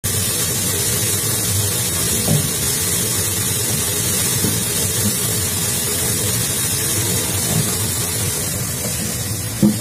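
Liquid gushing steadily from a bunkering hose end into a tank, foaming as it lands, heard as a steady hiss with a low hum beneath. A short knock just before the end.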